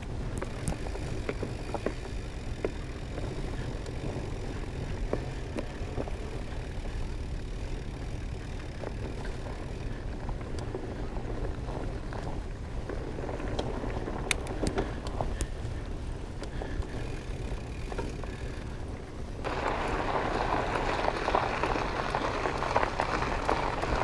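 Fat bike rolling over a dirt trail, heard from a camera mounted on its handlebars: a steady low rumble with small clicks and rattles. About 19 seconds in, a louder, gritty hiss of the wide tyres rolling on gravel sets in.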